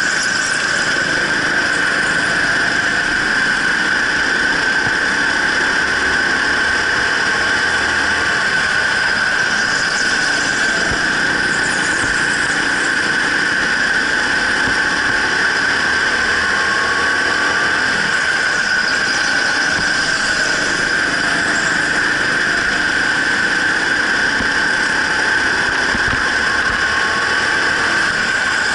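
Racing go-kart running flat out on an indoor track: a steady high-pitched whine over the constant noise of the kart, with faint rises in pitch now and then.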